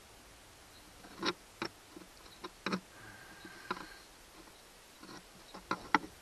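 Handling noise: irregular light clicks and knocks of a plastic cup and hands shifting against a fiberglass boat hull, the sharpest knock near the end. A brief faint high tone sounds about three seconds in.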